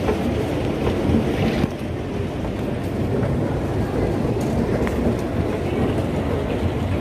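Steady low rumble of an airport terminal's background noise, heard on a handheld phone while walking, with a few faint clicks.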